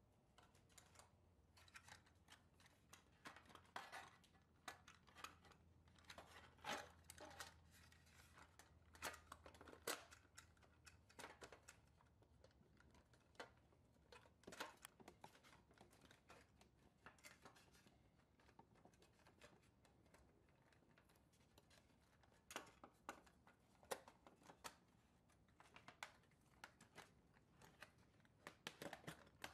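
Faint, scattered clicks, taps and light scrapes of the sheet-metal side band of a 1954 Tonka Grain Hauler toy trailer as it is handled and fitted around the trailer's plywood floor. The handling noises come thickest in the first half, thin out, then pick up again near the end.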